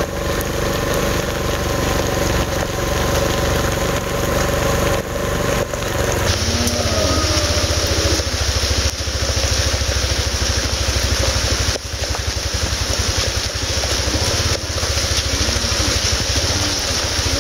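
Vehicle engine running steadily at low speed, with a hiss that comes in about six seconds in.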